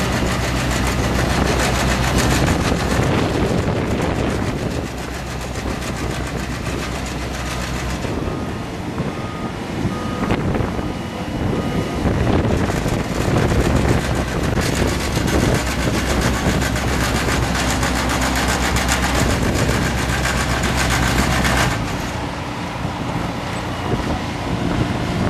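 Diesel engine of a ride-on twin-drum roller running steadily as it compacts a gravel ramp, its low note dropping away about a third of the way in, returning, and dropping again near the end. Short beeps come and go about a third of the way in.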